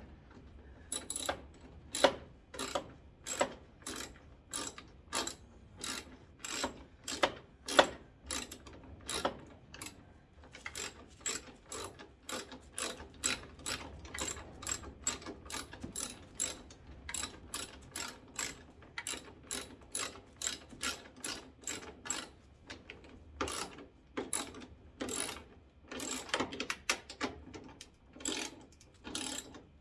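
Hand ratchet clicking stroke after stroke as screws are driven back into a headlight assembly, about two to three clicks a second, with a brief pause before it resumes.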